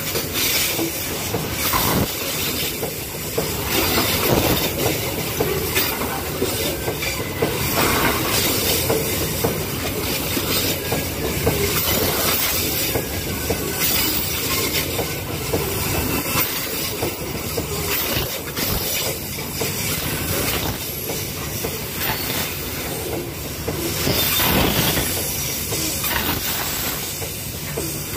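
Babaranjang coal train's gondola wagons rolling past at close range on a sharp downhill curve: continuous wheel-on-rail noise with repeated clacks and wheel squeal, and a hiss that fits the hard braking this curve demands.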